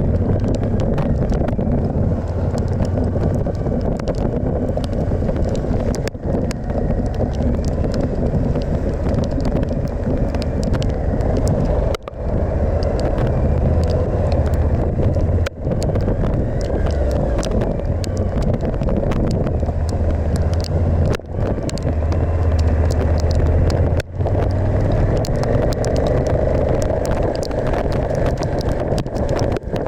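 Suzuki V-Strom 1050XT's V-twin engine running steadily under way, mixed with dense wind and road noise. The sound dips briefly five times.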